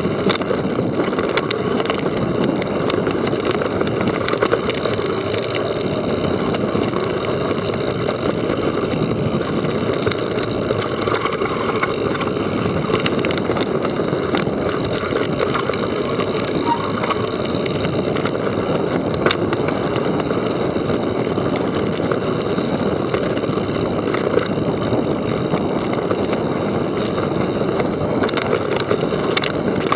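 Mountain bike riding down a rough trail: a steady rush of tyre and wind noise, broken by frequent sharp clicks and rattles from bumps.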